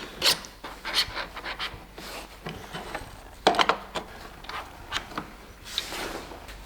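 Irregular knocks, clicks and scraping from motorcycle parts and hand tools being handled during disassembly, with a louder clatter about three and a half seconds in.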